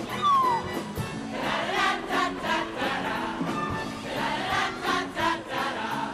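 Show choir singing an upbeat number over accompaniment with a steady beat.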